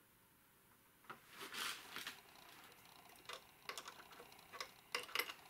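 Hand ratchet clicking in short, irregular runs, starting about a second in, as a threaded temperature switch is tightened into a thermostat housing.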